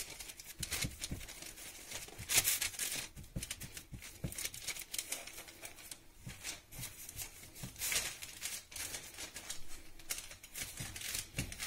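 Baking paper rustling and crinkling in irregular bursts as hands press and spread minced meat flat on it over a plastic cutting board.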